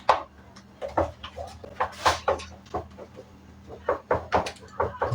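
Scattered knocks and clinks of kitchen utensils and containers being handled while mixing cake batter, over a faint steady low hum.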